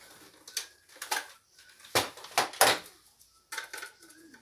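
Plastic clicks and clatters of a Nerf toy blaster being handled and set down on a wooden floor: a few sharp knocks, the loudest about two seconds in.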